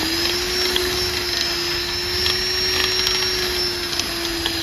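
Electric drill spinning a wire brush inside the injector cup bore of a Caterpillar C15 cylinder head, the motor holding a steady whine while the brush scrubs old retaining compound and debris from where the cup seats. A scratchy hiss and a few light ticks from the brush on the steel.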